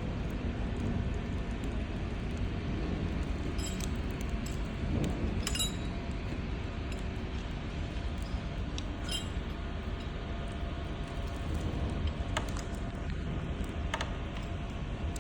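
A few light metallic clinks, about five spread out, over a steady low rumble.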